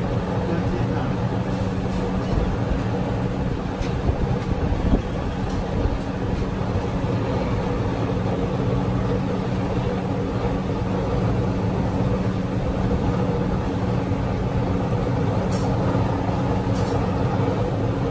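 Steady mechanical roar with a low droning hum from a street-food stall's cooking equipment, with a few faint clicks.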